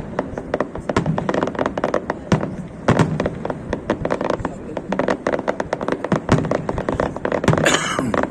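Fireworks display: a dense, rapid stream of bangs and crackles, many a second, with a brief hissing burst near the end.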